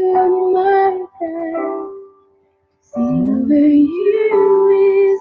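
Worship song with a sung voice holding long notes over instrumental backing; it drops out to near silence for about a second in the middle, then comes back.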